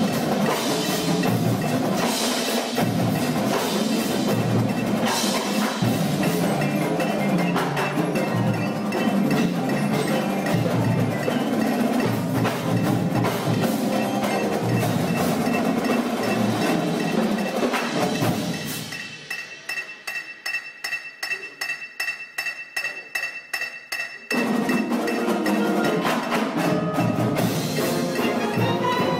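Marching band show music with prominent mallet percussion and bells. About 19 seconds in it thins to a quieter passage of rapid ticking percussion with ringing bell tones, and the full band comes back in about five seconds later.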